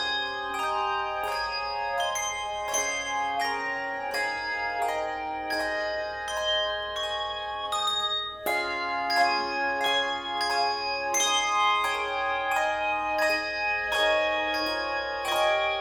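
Tuned bells playing a melody: many struck notes in quick succession, each ringing on and overlapping the next.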